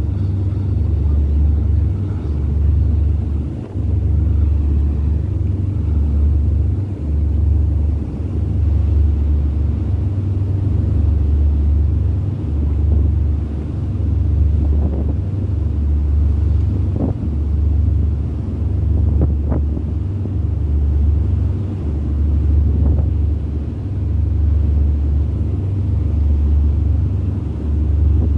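Low, gusting rumble of wind buffeting the microphone on the deck of a moving ship, over the drone of the ship's engines, with a few short knocks in the second half.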